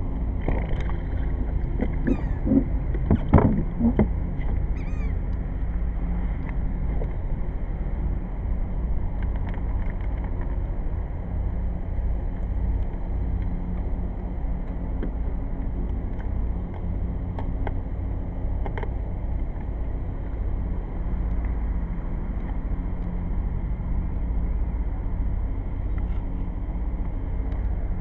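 1994 Sea-Doo GTX personal watercraft's two-stroke engine running steadily at low throttle, on bare carburettors with no flame arrestor or intake box. A few sharp knocks stand out over it about three seconds in.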